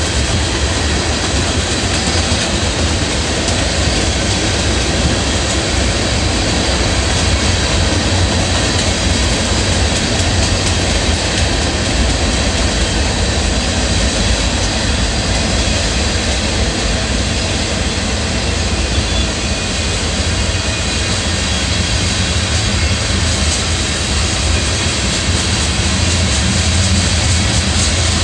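Freight cars of a passing train rolling along the rails: a loud, steady rumble of wheels on track.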